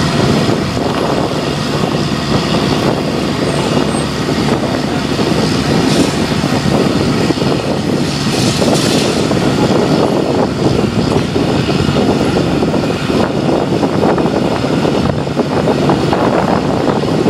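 Diesel engine of a marine travel lift running steadily while it holds a motor yacht in its slings.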